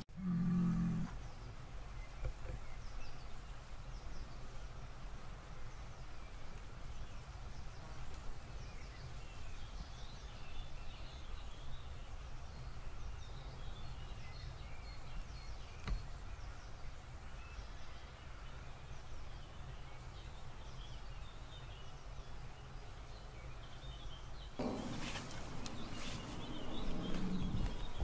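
Open-field outdoor ambience: small birds chirping faintly and sparsely over a low, steady rumble of wind on the microphone. A louder noise swells in about three seconds before the end.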